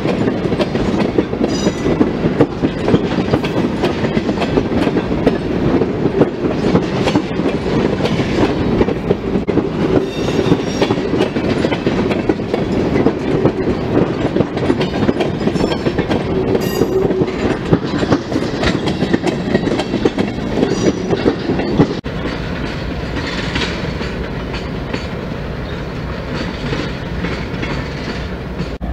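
Freight train of railway tank cars rolling past close by, steel wheels clicking over the rail joints. About two-thirds of the way through it gives way abruptly to a quieter, steady rumble as a diesel locomotive hauling a container train approaches.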